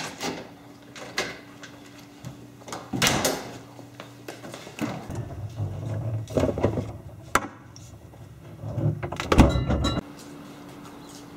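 Doors being opened and shut: a scattering of knocks, clicks and thumps, with a cluster of louder thuds near the end.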